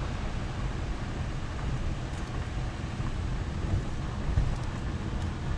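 Steady low rumble of a vehicle driving on a gravel road, heard from inside the cabin: tyre and road noise with engine hum, and a few small knocks from bumps, the loudest about four and a half seconds in.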